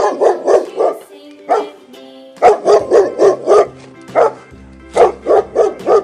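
Dog barking in quick runs of several short barks, over light background music.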